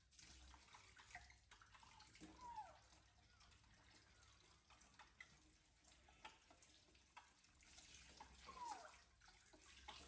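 Kitchen tap running faintly into a stainless-steel sink as fruit is rinsed under it, with small splashes and knocks. Two brief falling squeaks stand out, one about two seconds in and one near the end.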